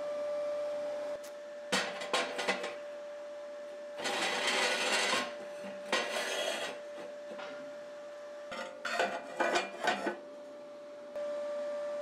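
Steel parts of a homemade rocket stove being handled and fitted together: clusters of metallic clinks and knocks, and two scraping rubs as a rusty steel pipe slides against the steel-plate body.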